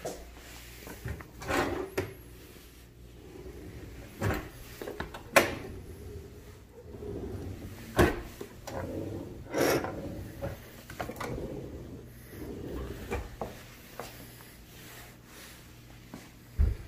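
Kitchen drawers and a lower cabinet door opened and closed by hand: drawers sliding on their runners, with several sharp knocks as they shut.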